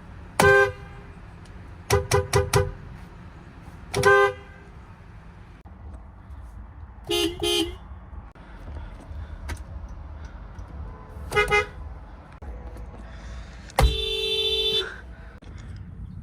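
Honda car horns honking in short toots: a single, a quick burst of four, another single, a lower-pitched double toot, another single, then one long blast of about a second near the end.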